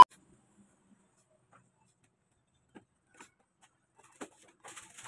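A steady beep tone cuts off at the very start, followed by near silence. Then come a few faint single clicks and knocks, and from about four and a half seconds in, light rustling and tapping as cardboard product boxes are picked up and moved.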